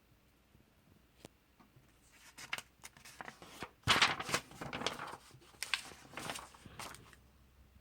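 Pages of a comic book being turned and handled: a run of paper rustles and swishes, loudest about four seconds in.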